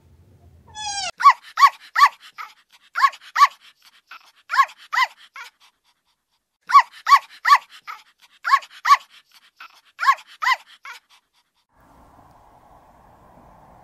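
A small dog yapping: short, high-pitched barks in quick groups of two or three, repeated about every second and a half. It stops near the end, leaving a faint steady outdoor hiss.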